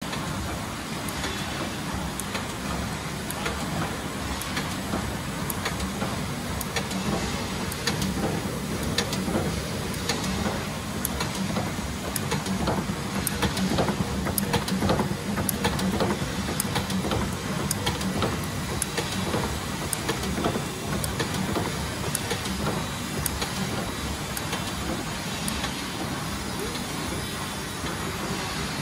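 Double-blow cold heading machine for bolts, pins and rivets running: a steady mechanical drone with frequent sharp clicks and knocks from its working strokes.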